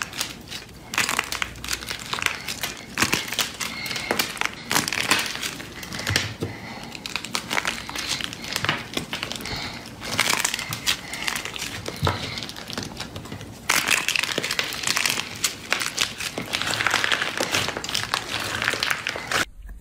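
Slime being squeezed and pressed by hand, giving a dense stream of crinkling, crackling pops that swells and fades in waves. It cuts off abruptly near the end.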